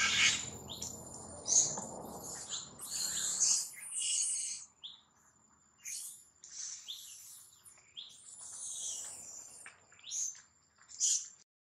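Short, high-pitched chirping and squealing calls, repeated irregularly, over a thin steady high whine. A low rumbling noise runs under the calls for the first three and a half seconds, then stops.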